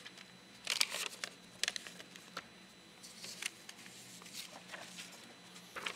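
Paper rustling and soft clicks as pages of prayer books and Bibles are turned, in scattered short bursts, over a faint steady hum.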